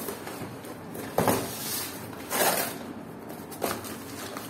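Cardboard shipping box being pulled open and torn by hand: scraping, rustling crackles, with three louder rips about a second apart.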